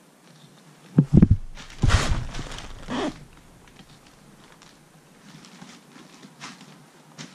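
Heavy knocks and scuffing from work on a polar bear hide stretched on a wooden frame: two deep thumps about a second in, a longer rough scuffing right after, and another knock near three seconds, then only faint light taps.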